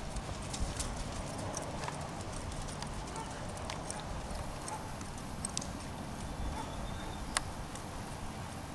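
A horse's hoofbeats on the soft sand of an arena as it moves at a jog under a rider, over a steady low rumble, with one sharp click about seven seconds in.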